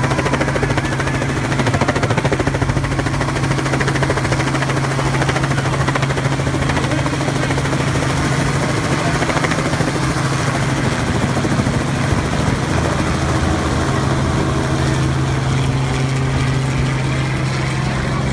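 Light two-bladed helicopter flying low overhead, its rotor chop and engine making a steady drone.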